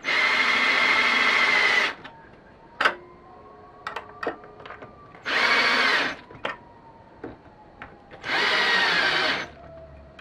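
Cordless drill with a quarter-inch drive socket driving screws into a blind mounting bracket, in three short bursts, the first about two seconds long, with small clicks between them.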